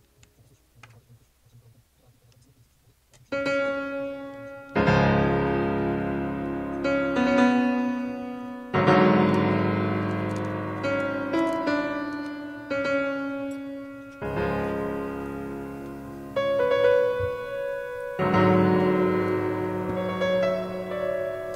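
Near silence with a few faint clicks for about three seconds, then background piano music: chords struck every few seconds and left to ring and fade.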